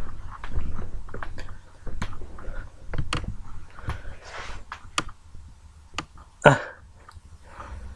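Handling noise from a camera being moved about: scattered clicks, knocks and low rubbing, with one louder short sound about six and a half seconds in.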